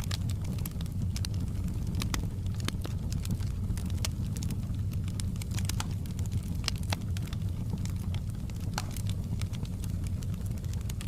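Wood fire burning in a fireplace: a steady low rumble of flames with irregular sharp crackles and pops of burning wood.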